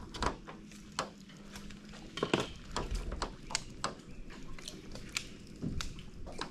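Irregular sharp pops and small splashes of fish feeding at the water's surface, a few a second and uneven in strength, over a faint steady hum.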